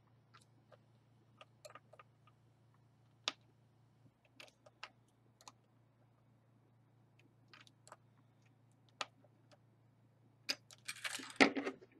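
A small screwdriver turning a screw into the plastic handle socket of a Sizzix Texture Boutique embossing machine: scattered faint clicks and ticks of the tool and plastic, with louder handling noise near the end.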